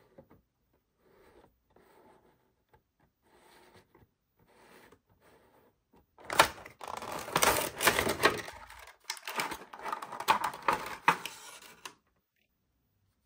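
Cardboard and plastic toy packaging being handled and opened: faint rustling at first, then about six seconds in, loud, dense crinkling and crackling that stops abruptly near the end.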